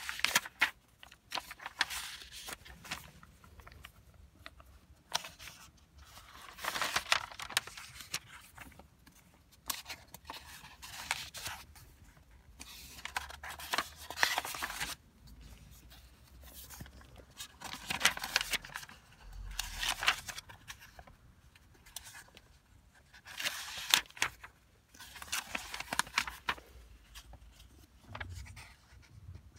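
Paper pages of an old desk diary being turned by hand one after another, a dry rustle and scrape of paper every two to three seconds.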